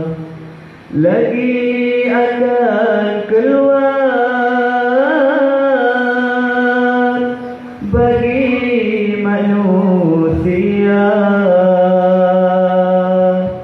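A man's voice chanting a devotional Maulid Nabi recitation in long held notes with melodic ornaments, pausing briefly for breath about a second in and again about eight seconds in.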